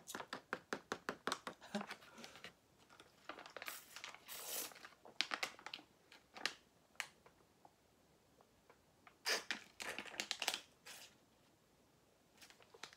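Plastic juice pouch crinkling as it is handled and squeezed: a quick run of crackles in the first two seconds, scattered rustles after, and a louder cluster of crinkles around nine to eleven seconds.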